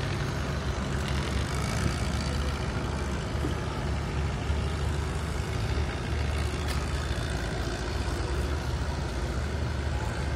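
An engine running steadily, a low continuous rumble.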